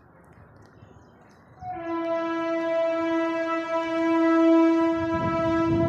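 A single long horn blast: one steady pitched tone that starts just under two seconds in and holds for about four seconds. A low engine rumble comes up near the end.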